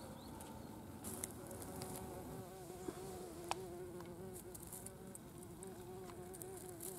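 A flying insect buzzing, a wavering hum that starts about a second in and keeps going, with a few faint clicks.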